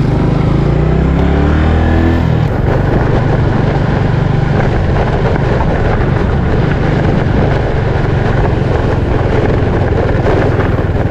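Small underbone motorcycle's engine accelerating, its pitch rising over the first two seconds. It then runs steadily at a cruise along a dirt track, with a dense rushing noise over the engine note.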